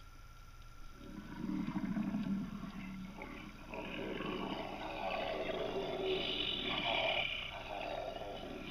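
Animal growling sound effect opening a psychobilly track on a vinyl record: a low growl starts about a second in, followed by rougher, higher growls from about four seconds on.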